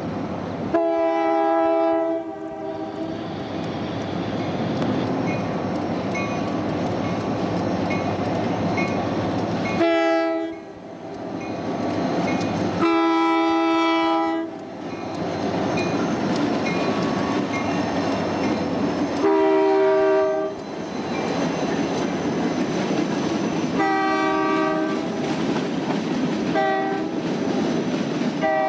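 Freight train led by EMD six-axle diesel locomotives passing close at a grade crossing: the lead unit's multi-chime air horn sounds about seven blasts, some long and some short. Between the blasts come the locomotives' diesel engines and wheels clattering over the rails, with a faint rapid dinging from the crossing bell.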